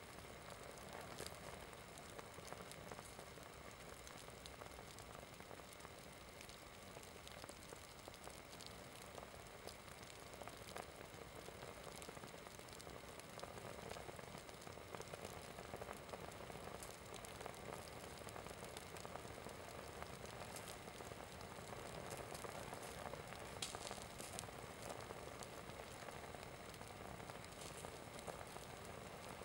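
Small flames burning along the edge of a synthetic Adidas sports top as the fabric melts: a faint steady hiss with scattered small crackles.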